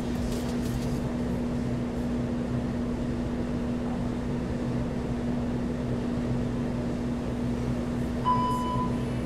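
Steady low room hum, then one short high electronic beep about a second before the end, from the workout interval timer.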